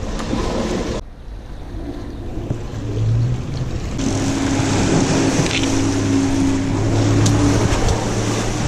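A steady engine hum comes in about four seconds in and holds, over a rushing haze of wind and water.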